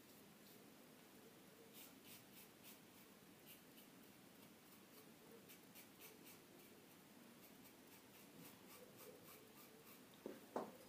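Faint, short scratching strokes of a Mühle R41 safety razor with an Astra Superior Platinum blade cutting stubble on the upper lip, repeated at an uneven pace on a second pass.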